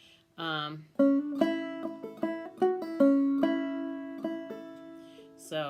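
Five-string banjo played clawhammer style: a few lead-in notes with a hammer-on, then the opening notes of a fiddle tune in the key of A, each note struck sharply and left ringing.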